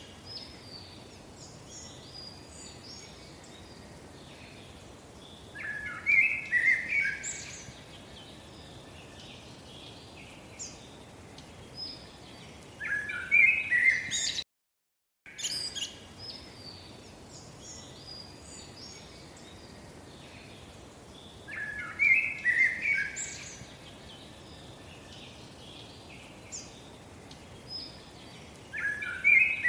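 Birds chirping and calling over a faint steady hiss, in a recording about fifteen seconds long that plays twice with a brief silent break halfway through. In each pass the louder clusters of chirps come about six seconds in and again near the end.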